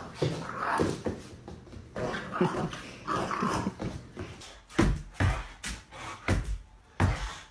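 A dog making short vocal sounds: whimpers and growls. In the second half come several sharp knocks.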